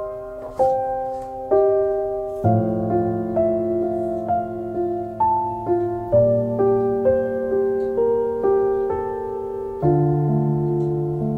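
Background piano music: a melody of struck notes over lower chords that change every few seconds.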